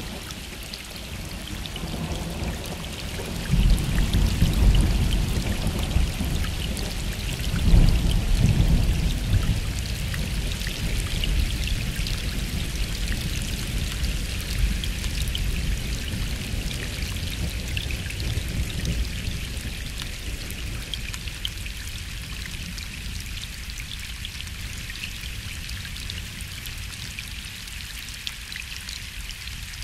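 Gentle rain falling steadily, with distant thunder rumbling. One roll swells about three and a half seconds in, a louder one about eight seconds in, and it then fades away slowly.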